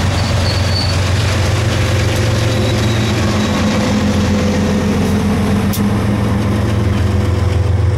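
Diesel freight locomotive's engine running with a steady low drone as it rolls past at the rear of a train of covered hopper cars. A brief high squeal sounds about half a second in, and a sharp click near the end.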